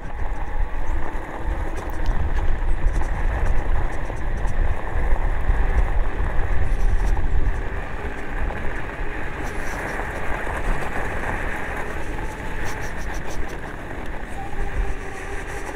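Freego DK200 e-bike riding over a gravel dirt track: wind buffeting the microphone as a deep rumble, loudest in the first half, over steady tyre noise on the gravel and a faint whine at times.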